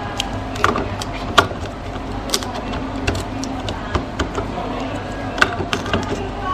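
Sharp plastic clicks and knocks at irregular moments as refill ink cartridges are pushed and snapped into an Epson T13 printer's cartridge carriage, over a steady low hum.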